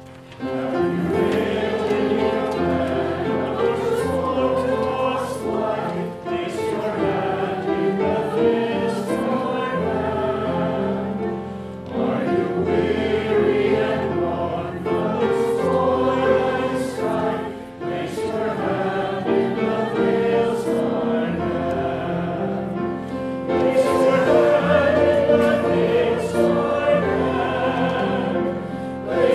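Church congregation singing a hymn together, in phrases broken by short pauses about every six seconds.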